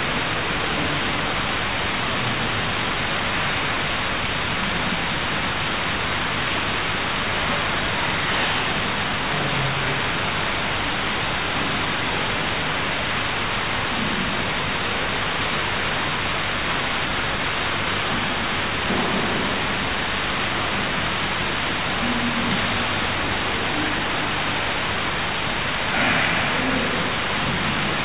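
Steady, even hiss of recording noise, with a few faint, brief murmurs underneath.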